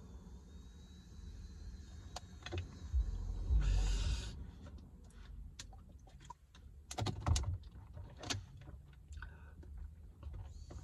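A long exhaled breath after a hit from a vape cartridge pen. Later, a plastic water bottle is handled and drunk from, with a cluster of crinkles and clicks.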